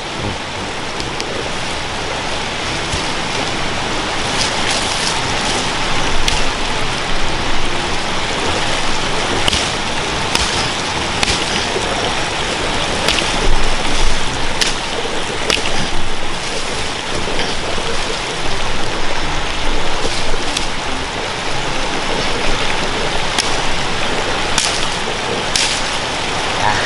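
Machete chopping branches and brush, giving sharp chops at irregular intervals over a steady, loud rushing hiss.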